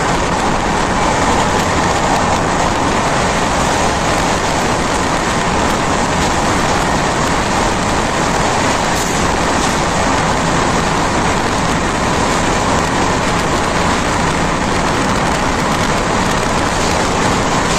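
Express passenger train running at speed, heard from on board: a loud, steady rushing noise of wheels on rail and air, unbroken throughout.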